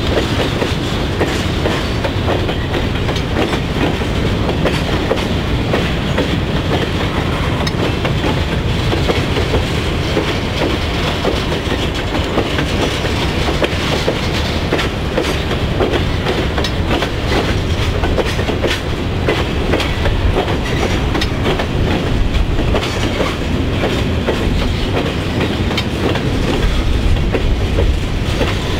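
Freight train of covered hopper cars rolling steadily past: a continuous heavy rumble with the clickety-clack of wheels over rail joints and many sharp metallic clicks.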